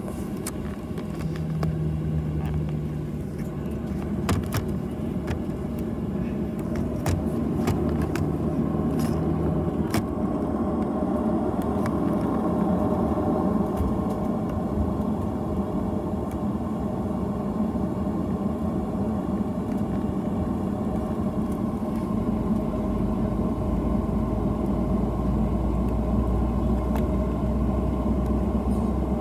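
Boeing 737 jet engines heard from inside the passenger cabin while taxiing: a steady hum and rumble at taxi power. A few light clicks and rattles come in the first ten seconds, and the low rumble grows stronger after about twenty seconds.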